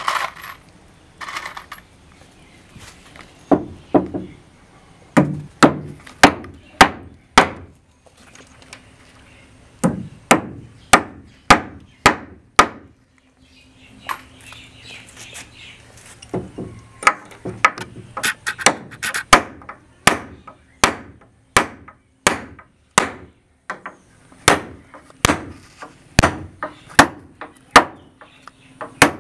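Hammer blows fixing a steel butt hinge to a wooden door frame: three runs of sharp, separate strikes at about two a second, with short pauses between.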